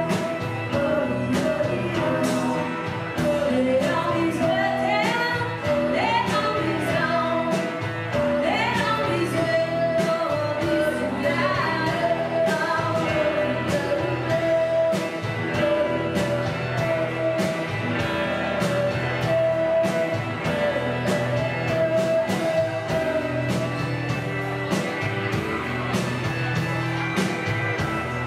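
Indie rock band playing live: distorted electric guitars and a steady drum beat, with a woman singing.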